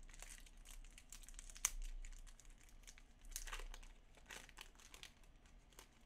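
A baseball card pack wrapper crinkling as it is torn open and handled, in irregular crackles with one sharp snap a little over a second and a half in.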